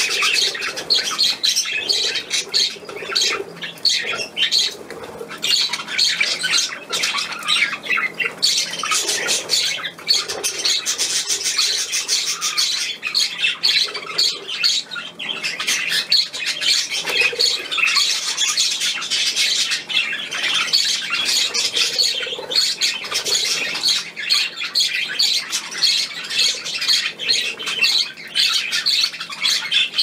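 A flock of budgerigars chattering and squawking without a pause, a dense overlapping mix of quick chirps and calls.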